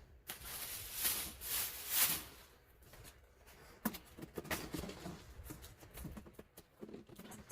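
Packaging rustling for about two seconds, then scattered light knocks and clicks as things are handled.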